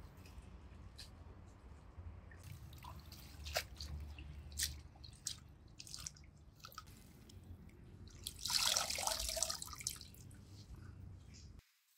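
Water dripping and splashing in small irregular drops, with a louder rush of water lasting about a second and a half around nine seconds in. The sound cuts off abruptly near the end.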